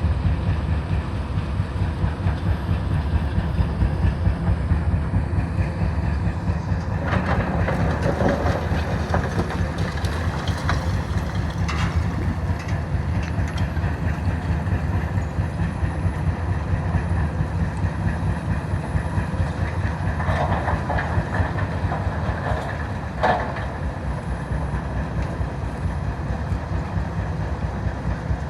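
Heavy machinery's diesel engine running steadily with a deep rumble, with a few sharp clanks, several in the middle and a louder one near the end.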